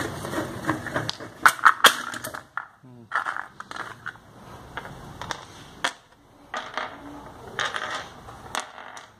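Clinks and sharp metal knocks of car wheel bolts being handled after removal, a cluster of loud clicks about one and a half seconds in and more scattered through the rest.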